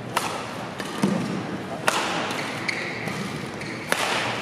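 Badminton rally: rackets striking the shuttlecock with sharp cracks about once a second, several in a row, over the murmur of an arena crowd.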